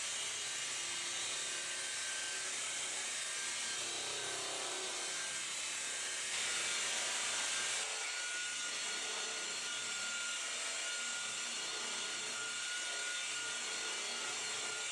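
A power polisher running steadily on car paint, with a faint steady whine; it gets a little louder for about a second and a half about six seconds in.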